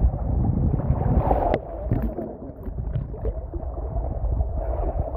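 River water churning and sloshing with heavy wind rumble on the microphone, starting abruptly, with a sharper hit about a second and a half in.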